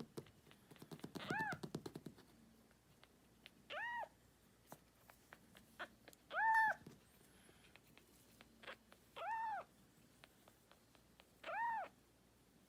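Domestic cat meowing five times, one call every two to three seconds, each rising and then falling in pitch, as it waits to be fed. A few faint clicks come between the calls.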